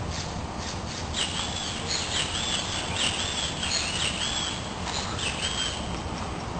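A bird chirping: a string of short, high notes, a few a second, that begin about a second in and stop near the end, over steady low outdoor background noise.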